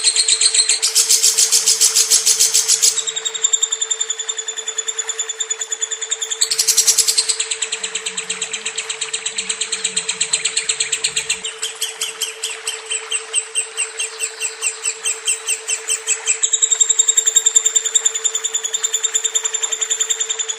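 Lovebird singing a long, unbroken chattering song of rapid, high chirps in runs that change pattern every few seconds, over a steady low hum.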